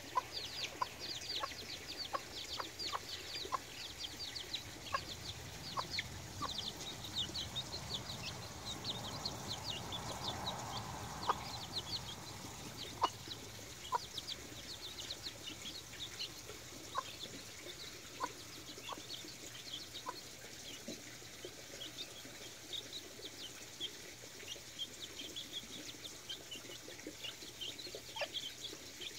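Four-week-old Sebright bantam chicks peeping continuously in many short, high, falling notes, with a hen clucking now and then.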